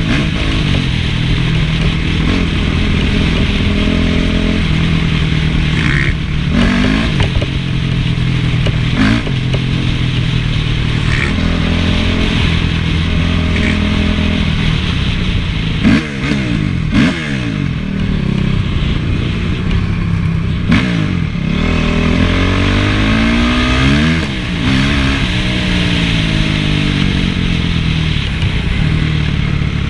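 Honda CRF450 single-cylinder four-stroke motocross engine running hard, its pitch climbing and dropping again and again as the throttle is opened and shut. A few sharp knocks come through, the loudest about halfway through.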